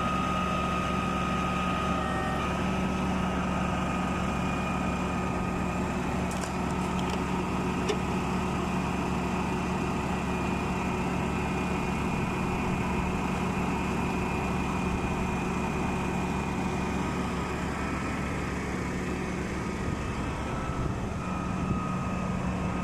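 Diesel engine of a Putzmeister 42-5 concrete pump truck running steadily at a constant pitch.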